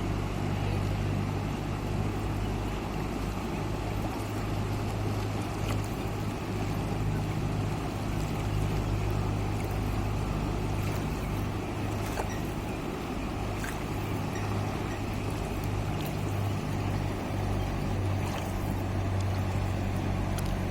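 Beas River rushing: a steady roar of fast mountain water with a low rumble under it and faint scattered splashes.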